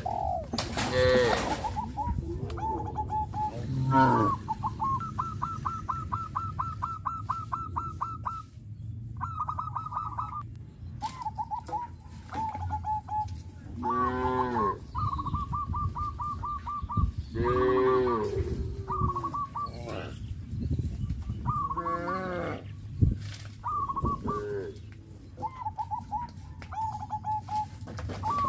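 Cattle mooing: about four long calls that fall in pitch, spread through the stretch. Between them a bird keeps up runs of rapid, high, repeated chattering notes.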